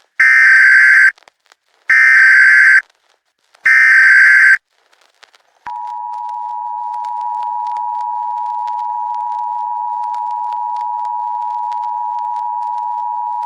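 Emergency Alert System tones: three short, loud bursts of buzzy modem-like data (the SAME header), then about a second later the steady two-note EAS attention tone, held on one pitch.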